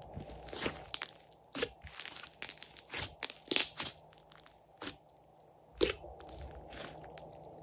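Thick glossy slime with small bits mixed in, squeezed, poked and stretched by hand: squishing with irregular sharp clicks and pops. The loudest pops come about three and a half seconds in and just before six seconds.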